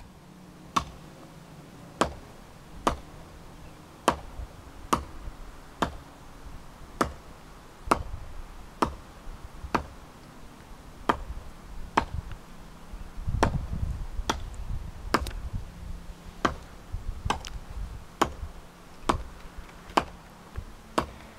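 Sharp, evenly spaced ticking clicks, about one a second, over a faint low hum, with a short spell of low rumbling a little past the middle.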